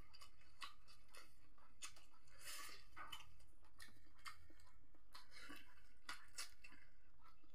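A person eating crab by hand: chewing with scattered small, irregular crunches and clicks of shell.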